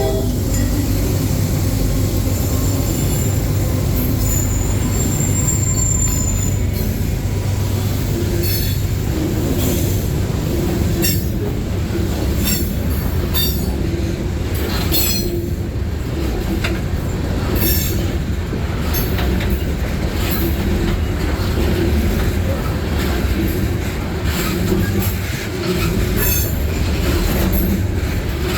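Freight train rolling past with a steady low diesel rumble. Its wheels clack over the rail joints again and again, and a brief thin wheel squeal comes about four seconds in.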